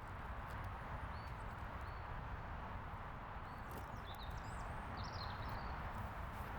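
Outdoor garden ambience: a steady hiss and low rumble, with a few short bird chirps about four to five seconds in and light scattered clicks.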